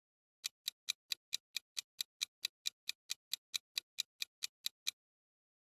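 Clock-ticking sound effect counting down the time to answer a quiz question: even, sharp ticks at about four and a half a second that stop about five seconds in.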